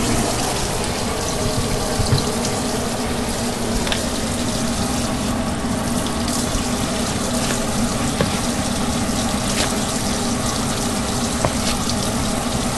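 Kitchen faucet running steadily into the sink, with a few light knocks from handling the breading bowl.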